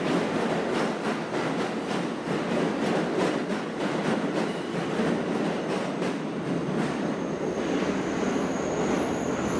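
N-gauge model train running along KATO Unitrack: a steady whirr with light, regular clicks of the wheels over the rail joints.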